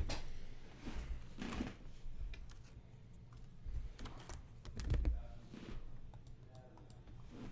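Typing on a computer keyboard: irregular runs of keystroke clicks, with a few louder knocks.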